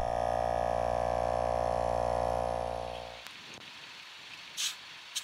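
Pittsburgh 12-volt portable air compressor running with a steady electric drone as it pumps up a low tire, stopping about three seconds in. A brief hiss of air and a click follow near the end.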